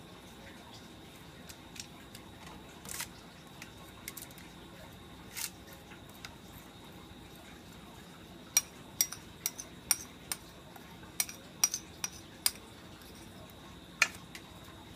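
Metal spoon clinking against a ceramic bowl as a seasoning mix is scooped out and spread over fish fillets: a few light clicks, then a quick run of about ten sharp clinks past the middle and one more near the end.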